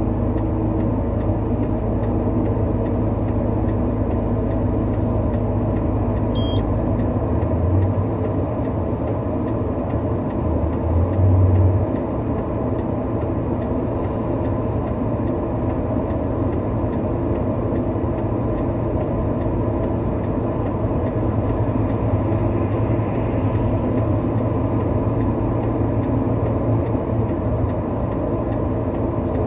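A large truck's engine idling steadily, with a brief louder surge about eleven seconds in.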